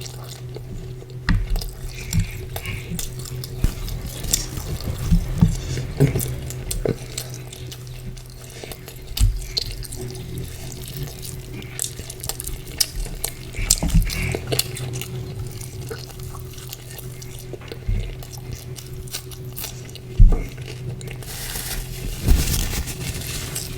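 Close-miked eating sounds of chicken curry and porota: irregular wet chewing and squelching with small clicks, over a steady low hum.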